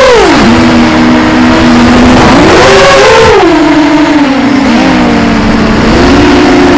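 FPV quadcopter's brushless motors and propellers whining, heard from the camera on board, with pitch following the throttle. The pitch drops sharply just after the start, swells and falls again about three seconds in, and climbs near the end. The motors run at slightly different speeds, so the whine splits into a few close tones.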